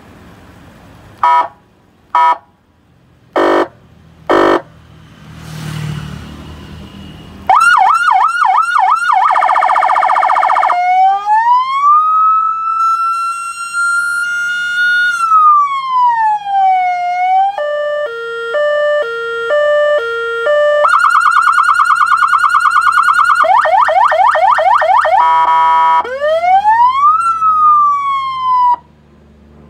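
A 200-watt electronic siren unit run through its tones. It gives four short blasts, then a fast yelp, a slow rising-and-falling wail, a two-tone alternating hi-lo, a rapid warble, another yelp and a last rise and fall that cuts off suddenly near the end.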